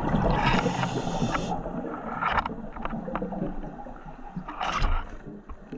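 Scuba diver's exhaled bubbles from the regulator gurgling, heard underwater through the camera housing: a loud burst for about a second and a half, a quieter stretch, then a shorter burst near the end.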